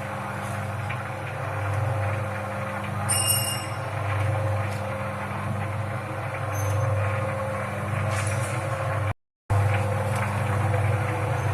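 Peanut-coating drum machine running with a steady mechanical hum that swells and fades every couple of seconds, with a short break about nine seconds in.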